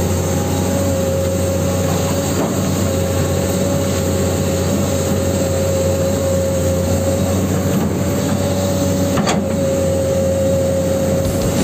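Huina 1594 RC excavator running its motors while it works the boom and bucket. It gives a steady hum with a constant whine over it, and one sharp click about nine seconds in.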